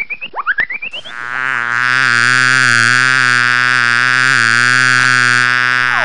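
Synthesized cartoon sound effects: a quick series of rising chirps, about three a second, for the first second, then a long steady buzzing tone with a slight waver that ends near the end.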